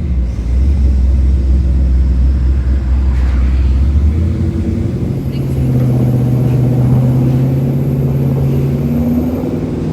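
Lifted Chevy K5 Blazer's engine running under way. The engine's pitch steps up about four seconds in and holds higher, then eases back near the end.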